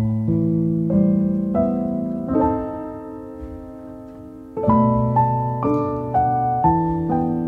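Background solo piano music with slow single notes. Midway a chord is left to fade for about two seconds before the melody resumes.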